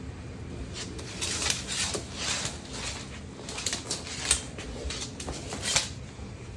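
Iguana letting out a series of short, breathy hisses, several puffs of air a few tenths of a second apart to a second or so apart, over a steady low background hum.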